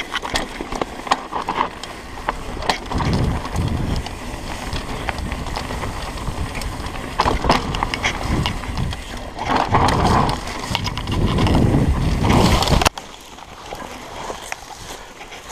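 Mountain bike riding down a dirt singletrack: tyres on dirt and the bike rattling and clicking over bumps, with wind rumble on the microphone. The noise cuts off abruptly about thirteen seconds in as the rider crashes and the bike goes down.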